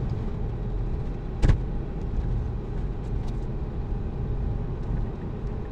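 Road and tyre noise inside a moving Tesla Model 3: a steady low rumble. A single sharp knock comes about one and a half seconds in.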